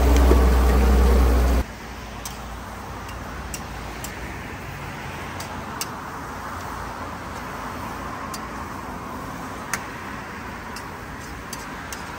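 Vegetables sizzling in hot oil in a pan, a steady hiss with scattered sharp crackles and pops. A loud low rumble at the start cuts off abruptly after about a second and a half.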